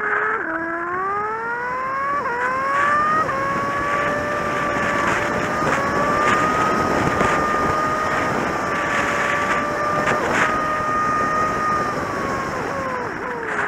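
Kawasaki Z750's inline-four engine accelerating hard, its pitch climbing with two quick upshifts, then holding a steady cruise; the revs fall away near the end as it slows. A steady rush of wind noise runs underneath.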